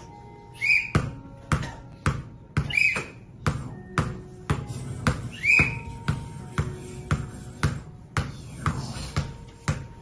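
Sharp thumps repeating about twice a second, with three short high squawks, each rising then falling, spread over the first half.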